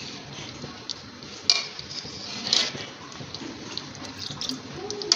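Steel ladle skimming oil off a pot of chicken nihari: a few sharp clinks of the ladle against the aluminium pot, about a second and a half and two and a half seconds in, with liquid trickling and dripping over a steady hiss.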